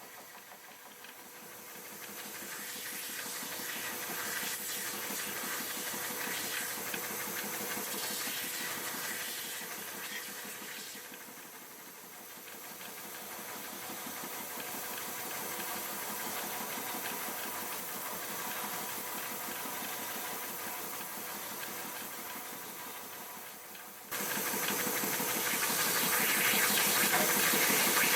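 An electric woodworking power tool running steadily, its level swelling and easing as the work loads it, then turning suddenly louder and hissier near the end.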